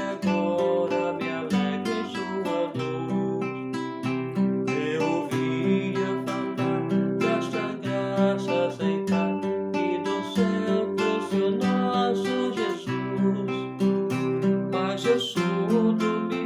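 Acoustic guitar strummed and plucked, playing a hymn tune.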